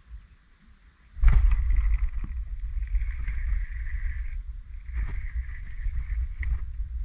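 A small boat on the water, with wind buffeting the microphone and a steady hiss of water along the hull, and a few sharp knocks. It is near silent for about the first second, then the noise starts abruptly.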